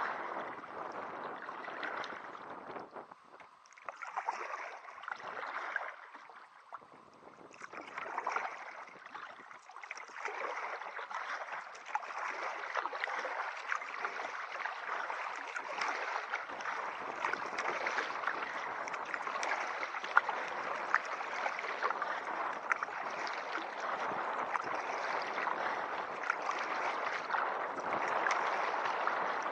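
Water rushing and splashing around a paddled kayak on a tidal river. Uneven for the first ten seconds or so, then fuller and steadier.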